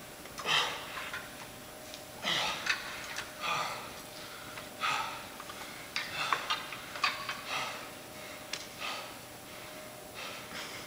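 A man breathing hard under exertion during a high-rep dumbbell set, with short sharp sniffs and forceful exhales at an uneven pace of about one a second.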